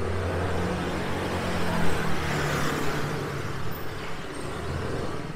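A motor vehicle passing close by on a city street: a low engine hum with tyre and road noise that swells to a peak about halfway through and then fades, its engine pitch dropping slightly as it goes by.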